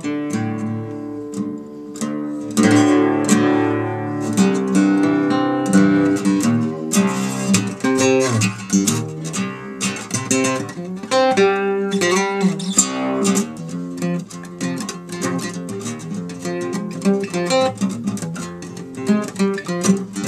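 Acoustic string instrument in doubled courses, strung as an octave mandolin, being played: plucked melody notes and strummed chords in a low register, ringing continuously.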